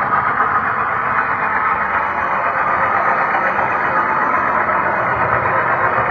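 HO-scale model train rolling along the track, heard from a camera riding on one of its wagons: a steady, even rumble of wheels on rail and the running gear.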